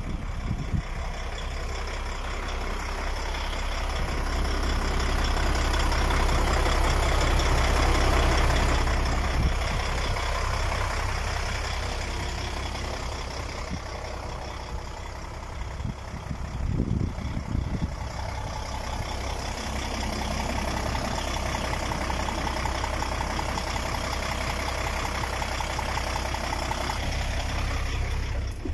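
DAF XF 105.460 tractor unit's 12.9-litre six-cylinder PACCAR MX diesel idling steadily with a low hum. The sound swells for a few seconds near the start, and there is a short burst of low rumble about halfway through.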